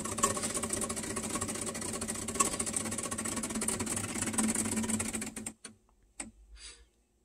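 Decent DE1+ Pro espresso machine's pump running with a rapid, even pulsing hum as it pushes water into the puck during pre-infusion. It cuts off about five and a half seconds in, as the profile moves to its next step, leaving near silence with a couple of faint short sounds.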